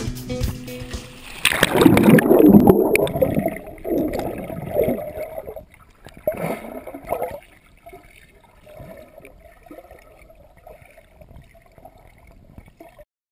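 Lake water splashing and gurgling right at the microphone. It is loudest for a couple of seconds just after the start, then comes in a few smaller surges and fades to faint sloshing.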